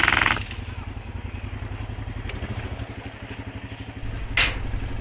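ATV engine idling with a steady low pulsing while the vehicle stands still. A short loud rattling burst sits right at the start, and a brief sharp noise comes a little after four seconds.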